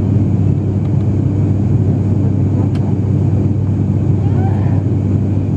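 Cabin drone of an ATR 72-600's turboprop engines and propellers in flight, heard from a seat beside the propeller. It is a steady, loud, low hum with even overtones above it, and it does not change over the few seconds.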